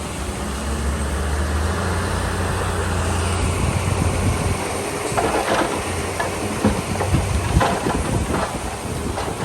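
Komatsu D31 crawler bulldozer's diesel engine running steadily while pushing dirt, its pitch dipping slightly a little under two seconds in. From about halfway through, scattered sharp clanks and knocks sound over the engine.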